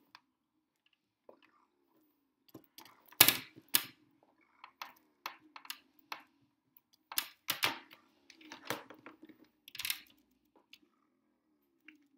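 Irregular clicks and knocks of a plastic food storage container and its lid being handled while insulation is packed inside and the lid is pressed on. The loudest knock comes about three seconds in, with a cluster of clicks around seven to ten seconds.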